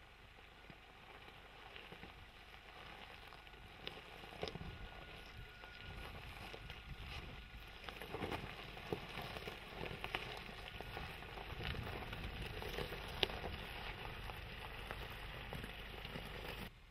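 Isuzu D-Max pickup driving over loose gravel: tyres crunching and popping stones, over the low rumble of its 1.9-litre four-cylinder common-rail diesel. It grows louder through the middle and cuts off suddenly near the end.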